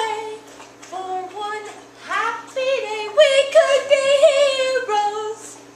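A teenage girl singing without clear words: long held, wavering notes, with a rising swoop about two seconds in.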